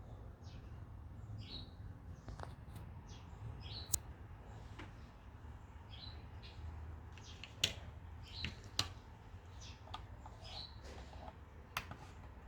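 Small birds chirping, short high calls repeating every second or so, with several sharp clicks over a low steady hum.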